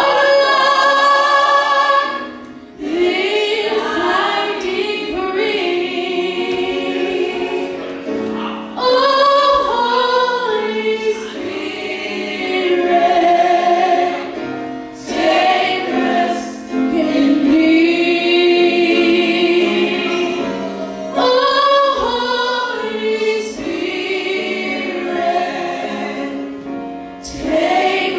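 A church choir singing a slow gospel song in long, held phrases, with a short break between phrases every few seconds.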